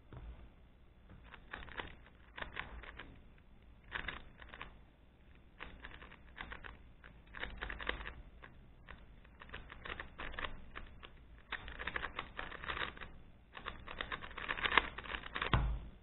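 Rubik's Speedcube (made with GAN), an unlubricated 3x3 speed cube, being turned fast by hand: bursts of rapid plastic clicking from its layers, pretty loud, with short pauses between bursts. A thump near the end.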